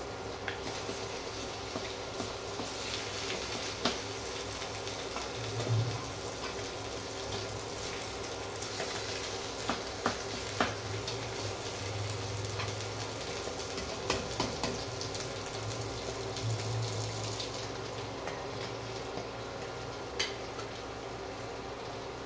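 Chilli-sardine paste sizzling in a nonstick wok, with a wooden spatula scraping and knocking against the pan now and then. The sizzle grows louder through the middle stretch and eases off toward the end.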